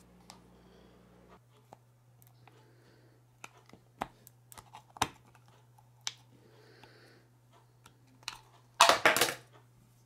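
Scattered sharp plastic clicks and taps as a flathead screwdriver works at the release tabs of a Honda snowblower's electronic chute joystick housing. Near the end comes a loud cluster of snaps as the plastic housing is pried open.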